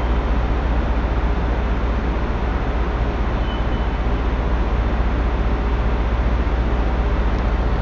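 Steady background hum and hiss of the recording, a constant low hum under an even hiss, with no distinct events.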